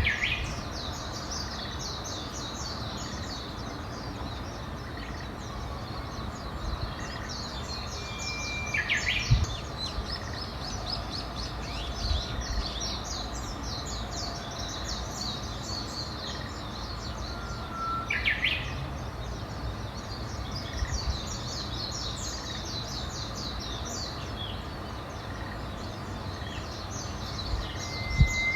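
Wild birds singing: a continuous chorus of fast, high chirps, while one bird repeats a song about every ten seconds, a held whistled note followed by a quick falling flourish. A low, steady outdoor rumble runs underneath.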